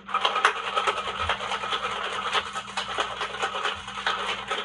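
Ice rattling in a cocktail shaker being shaken hard, a dense run of quick clattering strokes that starts abruptly and cuts off near the end.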